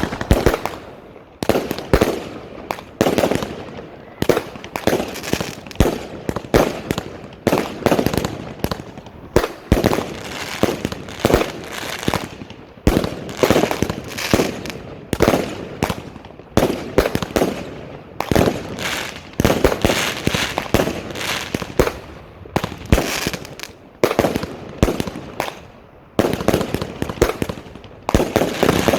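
Small 20 mm firework battery cakes firing their mixed shots in quick succession: a long run of sharp bangs, about one to two a second, with only brief pauses.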